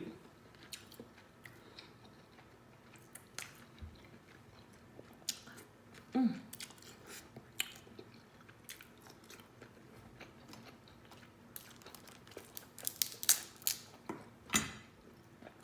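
Close-miked mouth sounds of eating a seafood boil: chewing and lip smacking with scattered sharp, wet clicks, which gather into a quick run of smacks near the end. A brief low voiced sound comes about six seconds in.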